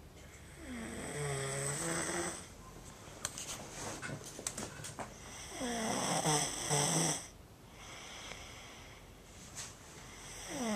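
A man snoring loudly in his sleep: two long, rough snores with a pitch that slides, about five seconds apart, and a third starting near the end.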